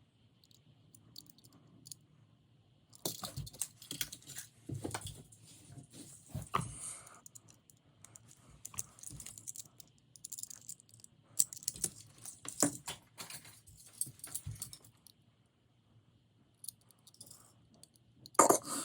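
Die-cast toy cars being handled: irregular clusters of light clicks and rattles, with a louder clatter near the end.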